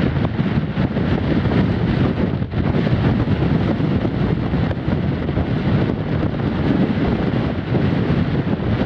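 Strong force-6 wind buffeting the microphone: a loud, steady, low rumbling wind noise that flutters unevenly.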